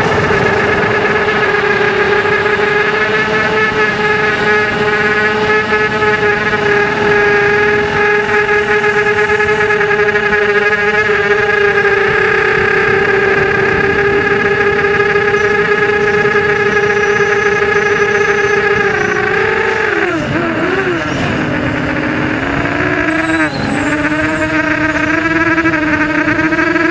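Onboard sound of a model aircraft's motor and propeller: a loud, steady whine that drops and wavers in pitch for a few seconds about twenty seconds in, then climbs back toward the end.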